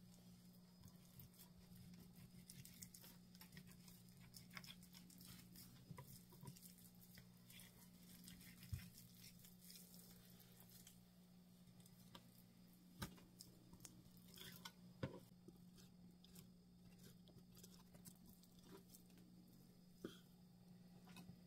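Faint sounds of a knife slicing raw venison into jerky strips on a plastic cutting board: scattered soft clicks and taps of the blade on the board, a few louder, and the wet sound of the meat being cut and pulled apart. A steady low hum runs underneath.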